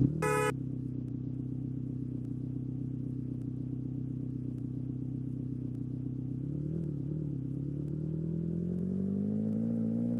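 A vehicle engine running, with a short loud burst as it starts. It holds a steady idle, wavers, then rises steadily in pitch from about eight seconds in as it speeds up.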